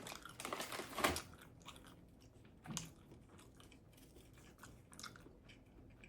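Chewing and biting into a toasted tuna melt sandwich, with a sharp crunchy bite about a second in, then quieter, softer chewing.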